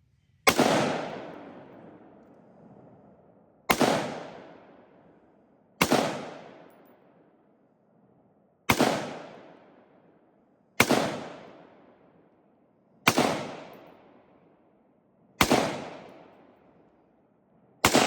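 A series of eight sharp bangs, each dying away over a second or two, coming every two to three seconds.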